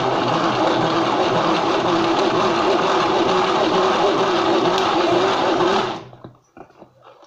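Hand-cranked plastic mixer whirring steadily as its handle is turned, whisking a liquid sauce inside the container. It stops about six seconds in.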